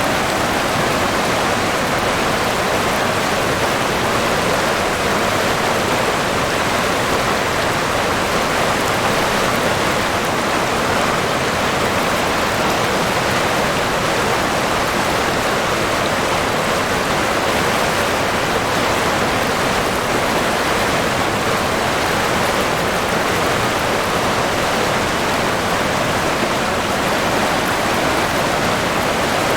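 River water flowing, a steady, unchanging rush of running water.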